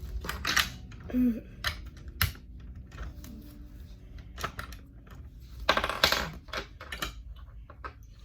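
Plastic LEGO bricks clicking and clattering as pieces are handled and pressed together, in irregular clicks, with a longer rattle of pieces about six seconds in.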